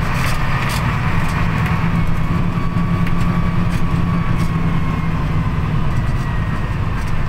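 Bus engine running at low road speed, heard inside the bus as a steady low drone, with light clicks and rattles scattered through it.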